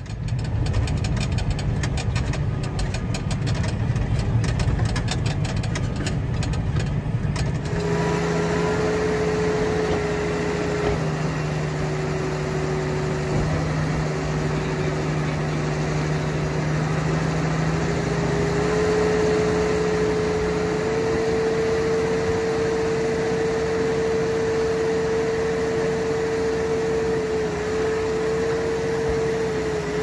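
Tractor engine running as it tows a loaded silage trailer. From about eight seconds in, the tractor runs steadily while its hydraulics raise a tipping trailer's body to unload silage, with a steady whine that edges up in pitch as the body lifts.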